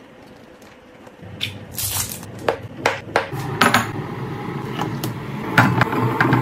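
Sharp clinks and knocks of kitchenware, a run of them from about a second and a half in and another cluster near the end.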